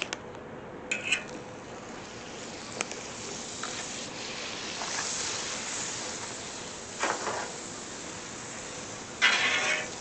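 Butter sizzling on a hot Blackstone flat-top griddle: a steady hiss that swells a little midway, with a few short clicks and a louder rasping burst near the end.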